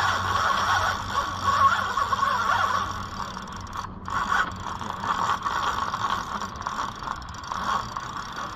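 Fishing reel giving a continuous ratcheting buzz while a strong trevally is fought on the line, with a brief break about four seconds in.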